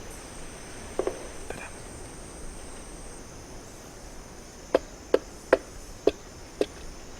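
Pale-billed woodpecker tapping on wood: a pair of close knocks about a second in, then five sharp single taps about half a second apart, typical of the bird testing the tree for good resonance. A steady high insect drone runs underneath.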